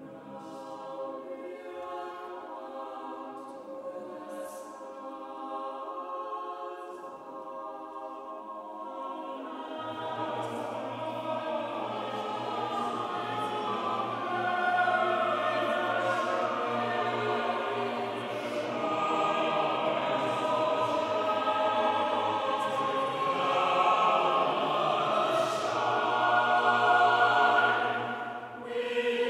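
Chamber choir singing unaccompanied in a large stone-vaulted hall, holding slowly shifting chords. Low bass voices come in about a third of the way through and the sound swells steadily louder, with a brief break just before the end.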